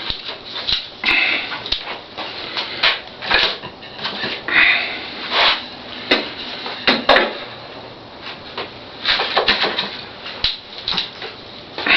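Irregular knocks, clicks and short scrapes of wood and tools being handled and adjusted at the table saw, with the saw itself not running.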